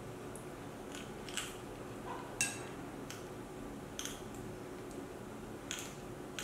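A metal spoon clinking and scraping against a ceramic plate as rice is scooped up: about half a dozen light clinks at irregular intervals, the loudest about two and a half seconds in.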